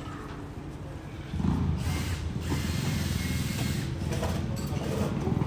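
A low mechanical rumble with a dense rattle, over street noise, growing louder about a second and a half in.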